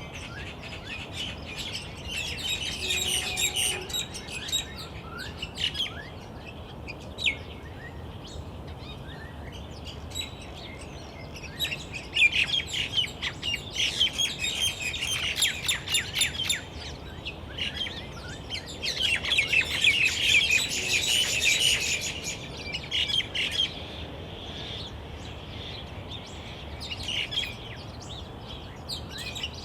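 Small birds chirping and twittering in dense, rapid bouts, loudest in three spells, over a steady low background hiss.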